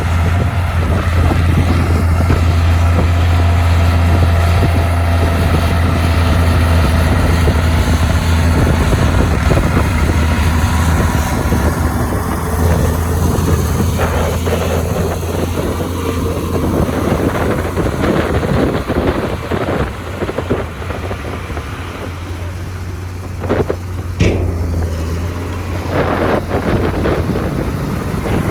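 Heavy diesel earthmoving machinery running steadily with a strong low hum, easing off a little in the second half, with a few sharp clanks.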